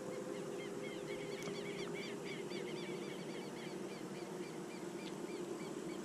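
A chorus of many short, quickly repeated chirping calls from small animals in the marsh, several overlapping at once, thickest a second or two in and thinning out later, over a steady low hum.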